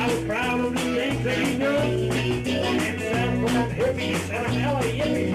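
A band playing live in rehearsal: an upbeat rock number with guitar, a steady fast beat and low notes stepping under a gliding melody line.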